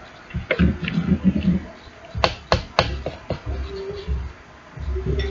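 Slime being stirred with a spoon in a bowl: irregular wet squishing, with three or four sharp clicks or pops in quick succession a little over two seconds in.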